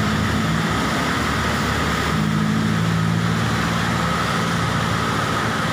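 Steady noise of heavy rain with a vehicle engine running underneath, cutting off abruptly at the very end.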